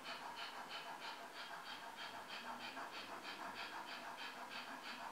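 A man doing a diaphragm panting exercise for singers' breath control: quick, even, dog-like breaths in and out through an open mouth, about four to five a second, driven by the belly.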